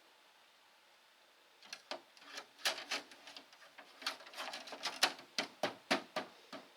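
Irregular plastic clicks, taps and light scrapes, starting about two seconds in: a cleaned portable air conditioner filter being handled and fitted back into the unit.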